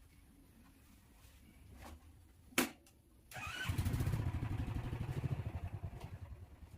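Motorcycle engine starting after a single click, then running with a rapid, even low pulse.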